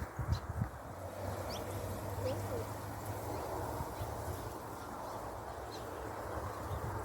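Outdoor background noise with a steady low hum, and a few faint, short bird chirps.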